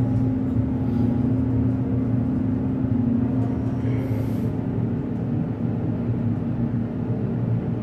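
Schindler hydraulic elevator running, a steady low hum and rumble heard inside the car as it rides.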